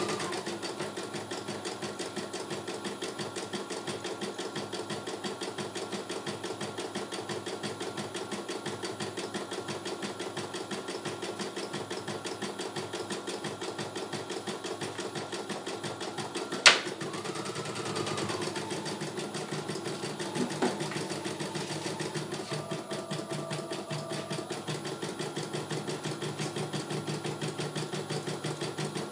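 CNY E900 computerized embroidery machine stitching a design, its needle running in a fast, even rhythm. One sharp click comes a little past halfway.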